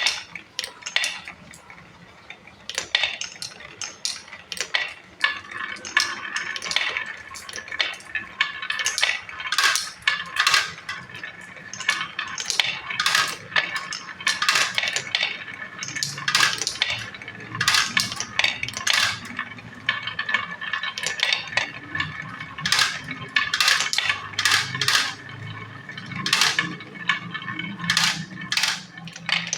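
Marbles racing down a marble run: a steady stream of irregular clicks and clacks as they knock against the track and each other, over a continuous rolling rumble along the slopes and pipe.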